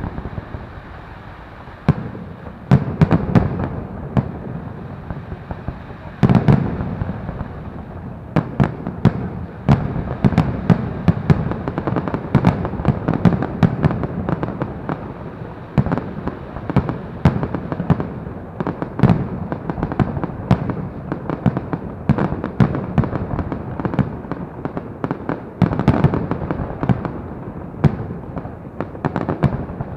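Fireworks display: a continuous barrage of bangs and crackling bursts in quick succession, with heavier booms now and then.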